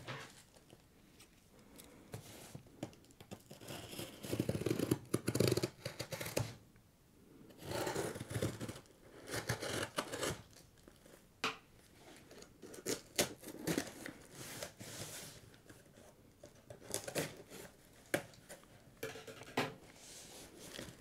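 A blade slitting the packing tape on a cardboard box, in irregular scraping strokes, with cardboard rubbing and a few sharp clicks.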